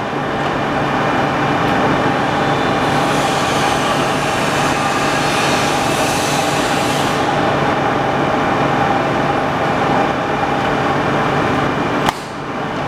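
Clausing Colchester 15" x 50" engine lathe running under power, a steady whine and hum from the spindle drive and geared headstock. A sharp click about twelve seconds in, after which it is slightly quieter.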